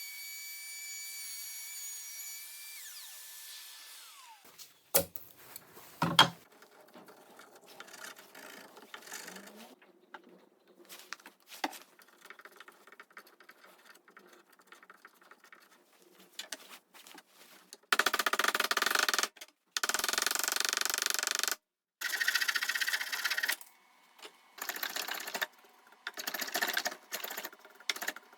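A cordless trim router's high-pitched whine, winding down and stopping about three seconds in. Two sharp knocks follow a couple of seconds later, then faint clicks and handling, and from about two-thirds of the way through comes a run of loud, rough bursts, each a second or two long with short gaps between.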